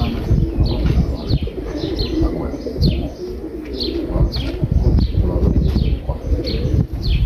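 Many domestic pigeons cooing together in a continuous overlapping chorus, with short, high, falling chirps of small birds over it, about two or three a second.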